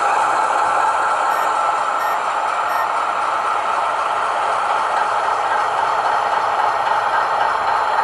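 Model Class 60 diesel locomotive creeping slowly along the track, with a steady diesel engine sound as if from a small speaker, over a light rattle of the model running on the rails.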